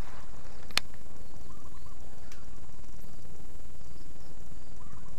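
Baitcasting reel giving a sharp click about a second in and a fainter click a little over two seconds in, over a steady low rumble of handling noise. Faint bird chirps come twice.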